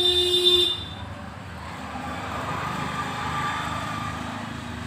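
A short horn blast lasting under a second, then the low rumble of an approaching diesel train that slowly grows louder.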